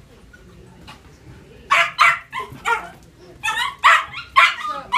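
Puppies barking at play: after a quiet start, a quick series of short, sharp barks begins just under two seconds in and runs on in quick succession.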